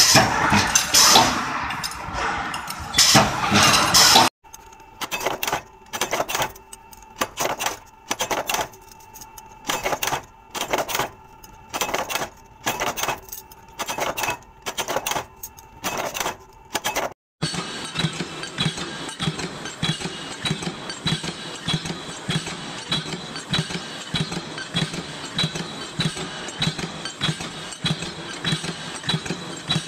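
Metalworking machines in three stretches. First comes loud, dense clatter from a ram machine forming steel hose clamps. Next, a power press stamps flat steel plates at about one stroke a second. Last, a press runs with a steady hum and a clack about every two-thirds of a second as flat steel bars are fed through.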